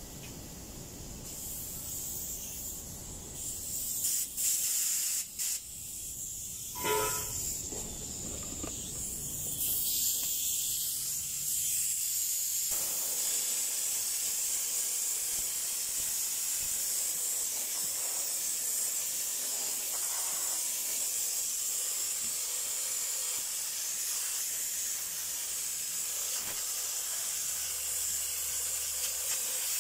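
Compressed-air spray gun with a canister, hissing as it blows a fine mist of cleaning liquid over a truck engine. It hisses in short uneven bursts for the first several seconds, then runs as a steady hiss from about ten seconds in.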